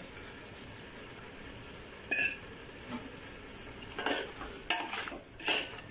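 Chicken biryani masala gravy sizzling in a pot as a steady faint hiss. There is a short ringing clink about two seconds in, then a few knocks and scrapes of a utensil against the pot from about four seconds on.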